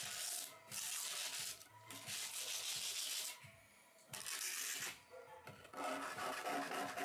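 Small steel trowel scraping vinyl concrete patcher across a concrete countertop in about five long strokes, pressed firmly to fill the air-bubble voids in the surface.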